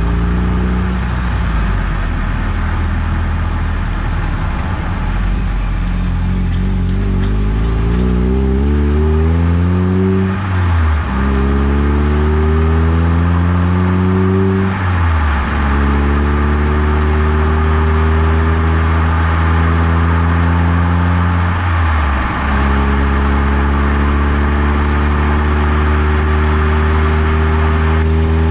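A Eunos Roadster's four-cylinder engine accelerates through the gears. Its note climbs, drops with a short lull at each of three upshifts (about ten, fifteen and twenty-two seconds in), then rises slowly in the higher gear. Road and wind noise grow louder with speed.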